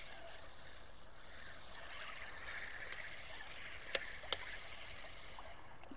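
Spinning reel being cranked, its gears giving a light steady whir, with two sharp clicks about four seconds in.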